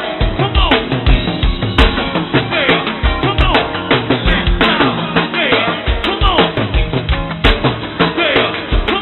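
Live go-go music from a band: a steady groove on drum kit and percussion with a voice over it. It is heard on a dull, lo-fi PA tape that has nothing above the upper mids.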